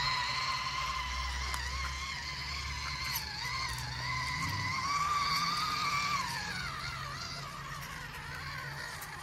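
Electric motor and gearbox of a WPL C44 RC truck whining as it drives through muddy water. The whine wavers in pitch, then falls about six seconds in as the truck slows.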